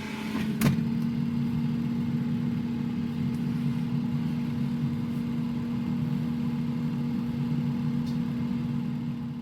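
Air fryer running: a steady fan whir with a low hum. One sharp click about half a second in.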